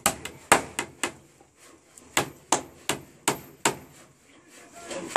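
Claw hammer driving nails into wooden wall planks: sharp blows about three a second, in two runs of about five with a pause of a second between, and one more blow near the end.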